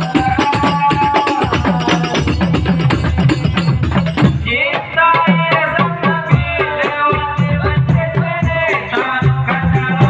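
Loud sholawat music with frame-drum percussion and shakers keeping a steady beat. About four seconds in, the sound changes: the highest treble drops away and a melody line comes in over the drums.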